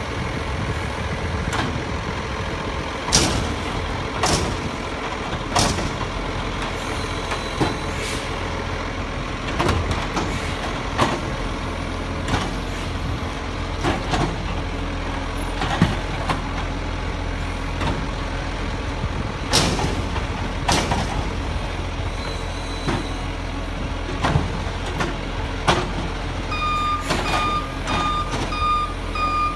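Side-loader garbage truck's engine running with a steady low hum, with sharp knocks and bangs as its lifting arm handles and empties wheelie bins. Its reversing alarm starts beeping steadily near the end.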